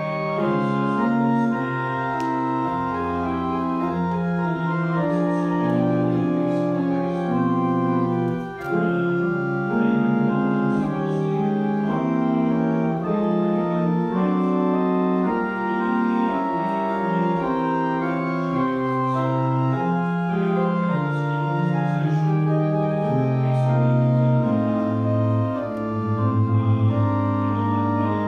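Pipe organ playing a classical piece: sustained chords moving over low pedal notes, with a brief break in the sound about eight seconds in.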